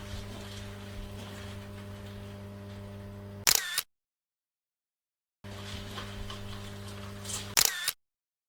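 Two camera shutter clicks, about three and a half and seven and a half seconds in, each cutting to dead silence. A low, steady electrical hum runs underneath before each click.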